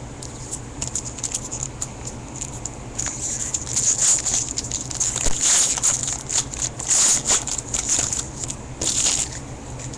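Crinkling and crackling of a foil baseball-card pack wrapper being torn open and handled, denser and louder from about three seconds in.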